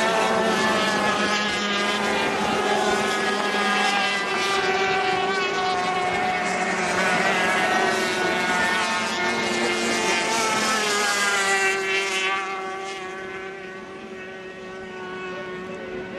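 Several 350cc racing powerboat outboard engines screaming at high revs, their overlapping whines rising and falling in pitch as the boats pass and turn. The sound eases off about three-quarters of the way through.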